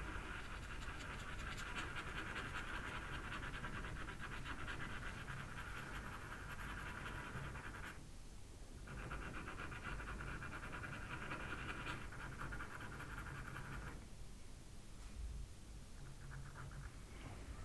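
Faber-Castell Pitt pastel pencil shading rapidly back and forth on Pastelmat paper: a fast, dry scratching made of many tiny strokes. It breaks off for about a second some eight seconds in and is fainter in the last few seconds.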